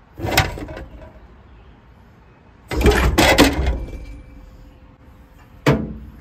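Metal clunks and clanks as the engine is shifted on a makeshift scissor lift: one clunk near the start, a cluster of several about three seconds in, and a single sharp knock near the end.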